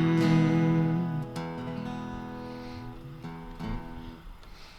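The closing chord of a gospel song with acoustic guitar: held for about a second, then ringing out and fading away.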